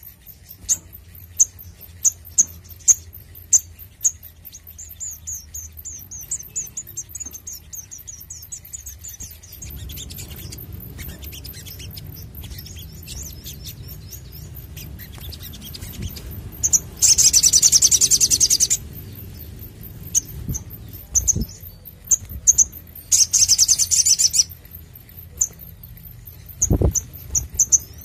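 Male olive-backed sunbird calling: a run of short, sharp high chirps, then two loud rapid bursts of song (the 'nembak' shot) in the second half, with scattered single chirps between. A low rumble sits underneath from about a third of the way in, with two soft thumps near the end.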